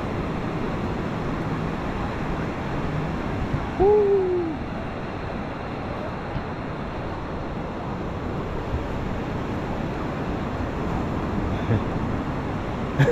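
Steady rush of ocean surf with wind noise. About four seconds in there is a single short hoot-like call that rises and then falls in pitch.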